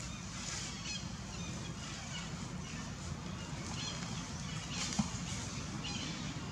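Outdoor ambience: a steady background hum with faint, short high-pitched chirps scattered through it.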